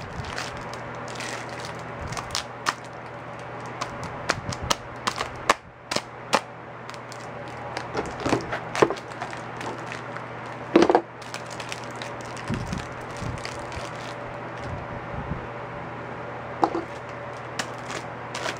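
Plastic popsicle packaging crackling and crinkling while being worked at with a kitchen knife, with scattered sharp clicks and taps and one louder knock about eleven seconds in, over a steady low hum.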